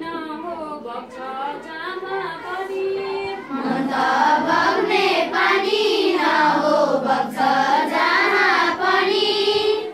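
Schoolchildren singing a Nepali poem in chorus. One voice sings a line alone, then about three and a half seconds in many children's voices join in, louder.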